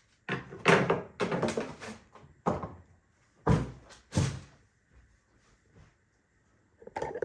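A series of handling knocks and thuds as objects are moved and set down, with two heavier thuds a little past the middle and a clatter starting near the end.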